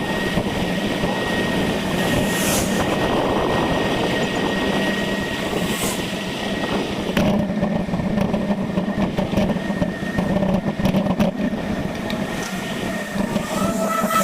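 Steady road and wind noise from a bicycle being ridden, with a thin, steady high tone running underneath.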